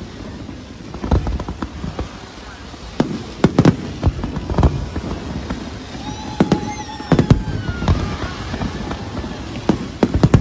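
Fireworks display going off: irregular sharp bangs from bursting shells, some in quick clusters, over a steady background rumble.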